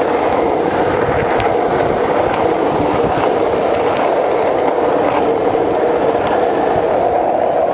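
Skateboard wheels rolling fast on asphalt: a steady, loud rolling rumble with a few faint clicks over joints and cracks in the road.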